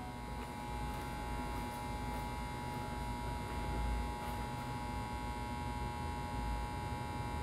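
Steady electrical hum with a high, even whine over a low rumble, and a few faint clicks in the first half.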